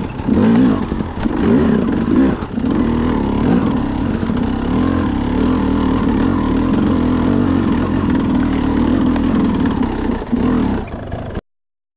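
Trail dirt bike engine being ridden over rocky ground, revving up and down over the first few seconds, then running steadily, before cutting off abruptly near the end.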